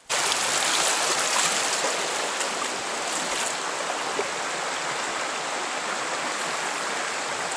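Steady rush of flowing river water, cutting in abruptly and loud from the first moment.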